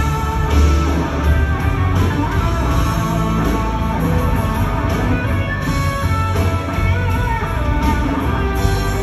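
Soft-rock band playing live, with guitar to the fore over a heavy bass.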